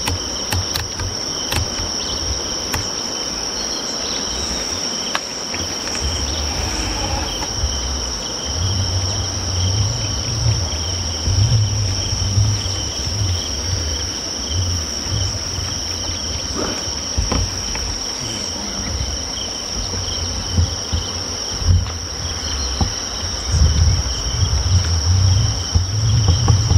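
Steady, high-pitched chorus of insects, an unbroken trilling drone. An uneven low rumble comes and goes under it from about eight seconds in.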